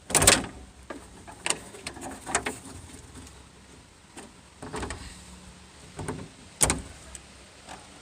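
Clicks and knocks from hand work on a van's door latch mechanism and its cable clips: a loud clunk right at the start, then several sharper clicks and knocks, one of them loud near seven seconds.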